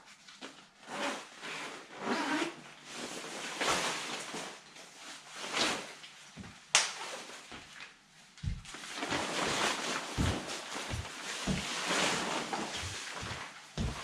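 Rustling as clothing and packaging are handled and moved around, with one sharp click about seven seconds in and a run of soft thumps in the second half.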